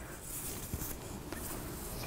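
Faint rustling of cotton macrame cord rubbing and sliding as it is handled and pulled through a knot, with a couple of small ticks.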